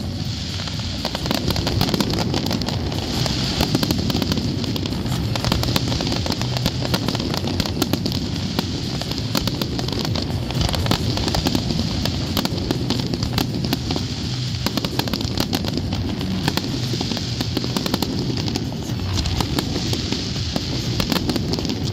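Fireworks display: shells bursting with many rapid cracks and pops over a constant low rumble, with music playing alongside.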